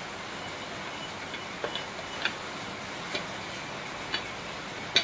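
A rolling pin clicking against a steel plate as a small ball of dough is rolled out into a puri: sharp light clicks about once a second, starting about a second and a half in, over a steady hiss.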